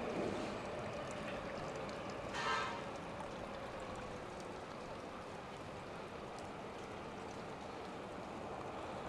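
Steady rain hiss on wet pavement. A passing train's hum fades away over the first few seconds, and a brief high squeak comes about two seconds in.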